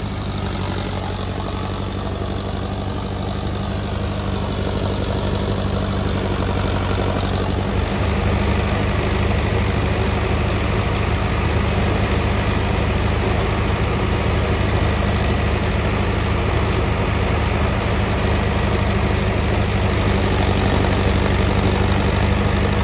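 A Mahindra Arjun Novo 605 DI tractor's diesel engine running steadily under load, driving a paddy thresher through its PTO, with the thresher's drum whirring and straw rushing through it. The rushing noise gets louder and brighter about eight seconds in.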